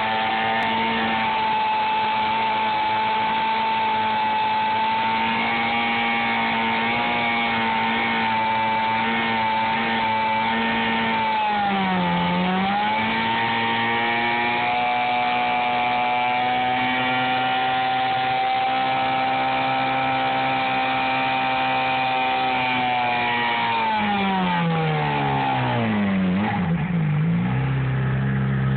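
2009 Suzuki GSX-R600's inline-four engine held at high revs in a stationary burnout, the rear tyre spinning. The revs dip briefly about twelve seconds in and recover, then drop away to idle a few seconds before the end.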